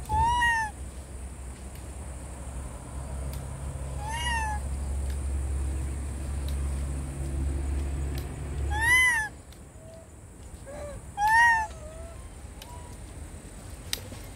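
Macaque giving four short, high-pitched coo calls a few seconds apart, each rising and then falling in pitch, the last two loudest. A low rumble runs underneath and stops about two-thirds of the way through.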